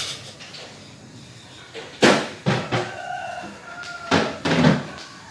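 Several sharp knocks and thumps, the loudest about two seconds in and again near the end. Between them a rooster crows faintly once.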